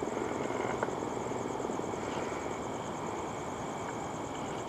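Steady distant engine drone with a fast, fluttering texture, over a high, pulsing insect chirr.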